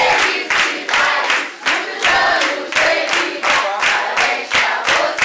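A group of people chanting and shouting together in unison, in a fast, steady rhythm.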